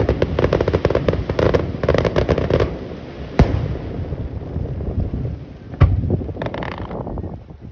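Fireworks going off: a dense, rapid crackling of many small bursts for the first two and a half seconds, then two separate sharp bangs, the second about two and a half seconds after the first.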